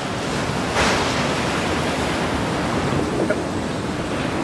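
Sea water rushing along the hull of a monohull sailboat under way, with wind noise, a steady rush that swells briefly about a second in.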